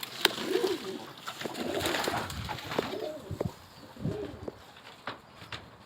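Domestic pigeons cooing: several low, rounded coos spread through a few seconds, with a few small clicks.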